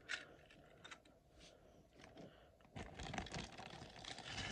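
A few faint clicks as a small plastic toy train tender is handled. About three seconds in, a clear plastic packaging bag starts crinkling as a piece of foam is pulled from it.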